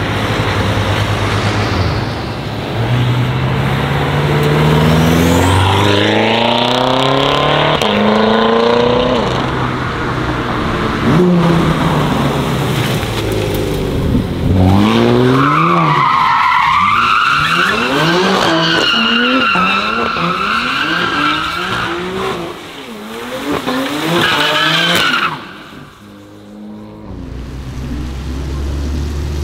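BMW F10 M5 twin-turbo V8 accelerating hard, its revs climbing in several rising sweeps. Then an F80 M3 sliding sideways on wet tarmac, its tyres squealing in a long wavering screech while the engine revs. It ends with a low engine rumble as a BMW 1M Coupé rolls past.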